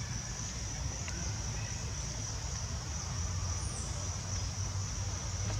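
Insects droning in one steady, unbroken high-pitched buzz, over a low rumble.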